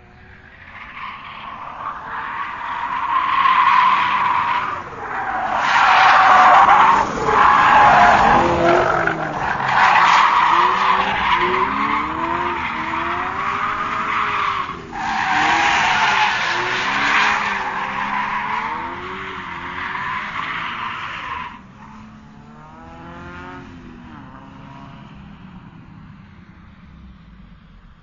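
Racing car tires squealing and skidding through a long drift, with the engine revving up and down beneath. About three quarters of the way through, the squeal stops sharply and the engine goes on more quietly, revving up.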